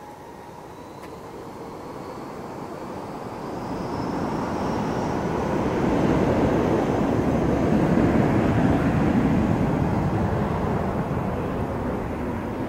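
Airbus A321 twin-jet airliner taking off past the listener: a rushing jet-engine noise that grows steadily louder, is loudest about six to nine seconds in, then starts to fade, with a faint high whine above it.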